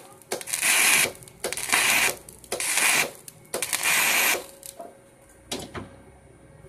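Flux-cored MIG welding arc crackling in four short bursts of under a second each, with brief pauses between, as stitch welds are laid; the welding stops about four and a half seconds in, and a single click follows.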